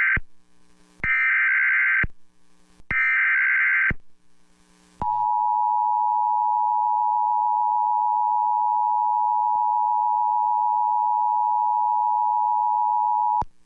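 Emergency Alert System header: the end of one SAME digital data burst and two more buzzy data bursts, each about a second long. Then the two-tone EAS attention signal sounds steadily for about eight seconds and cuts off sharply. Together they announce an emergency alert, here a severe thunderstorm warning.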